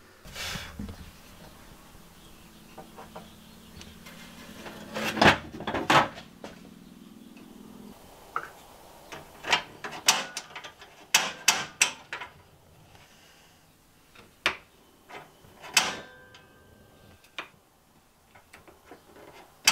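Scattered sharp clicks and knocks of an RV gas stove being put back together and its control knobs pushed and turned, with a faint low hum for the first several seconds.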